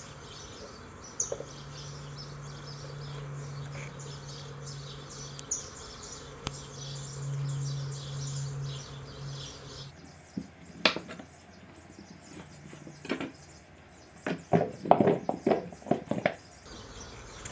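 Potatoes being cut by hand with a kitchen knife over a plastic bowl, with birds chirping faintly and a steady low hum behind. After an edit about ten seconds in, a run of sharp knocks and clatter from the knife and a wooden cutting board, loudest near the end.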